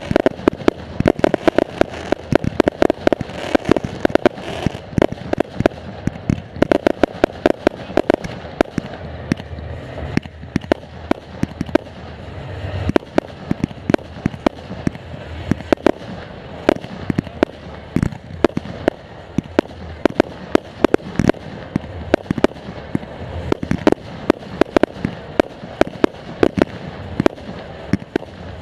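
A professional fireworks display at close range: a rapid, unbroken string of launch thumps and aerial bursts, several sharp reports a second, with crackle between them.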